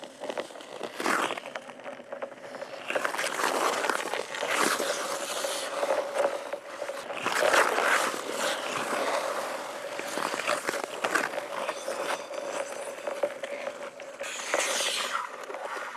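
Ice skate blades scraping and carving across bare lake ice close by, in long hissing surges as skaters pass, loudest a few seconds in and again around the middle.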